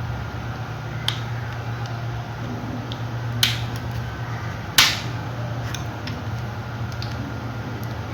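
Three sharp plastic clicks from handling the parts of a toy airliner as its wings are fitted, the loudest about five seconds in, over a steady low hum.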